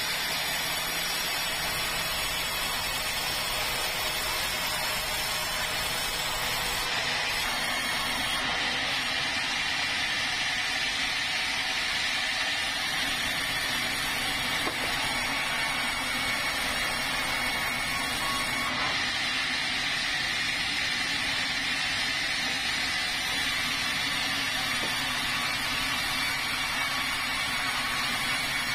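Large stationary sawmill saw running steadily as it rips a red meranti beam into planks. It makes a continuous machine noise with a high, steady whine.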